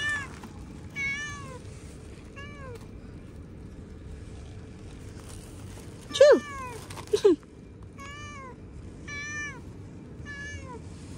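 Stray cats meowing repeatedly while waiting to be fed, about eight short meows in all. Two loud, lower meows come about six and seven seconds in, and fainter, higher meows fall in between.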